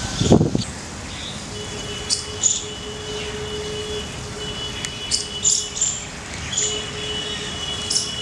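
Outdoor ambience of birds chirping, with short high calls scattered throughout, over a steady background hum with some held tones. A brief loud thump comes right at the start.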